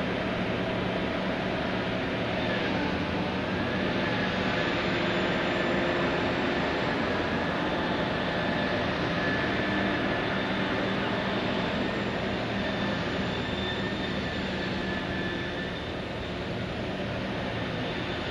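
Liebherr P995 backhoe dredger's machinery running steadily under load, a dense mechanical drone with a faint wavering high whine on top. It eases slightly near the end.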